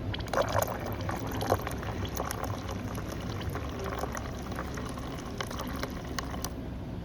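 Coffee pouring from a de Jong Duke Lua coffee machine into a cup, with a crackling, spluttering sound that stops near the end. A steady low hum runs underneath.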